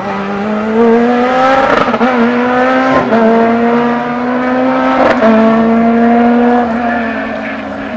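Rally car engine accelerating hard up through the gears, the pitch climbing and then dropping sharply at three quick upshifts. The engine note levels off and fades near the end as the car pulls away.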